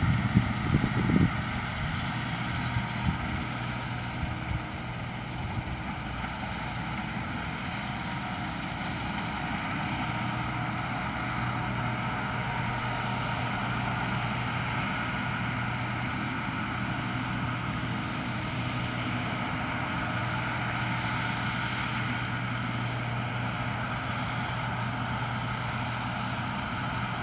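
Case IH 2388 combine harvester running steadily while harvesting oilseed rape: a constant drone of engine and threshing machinery with a steady low hum. A loud low rumble sits in the first second or so.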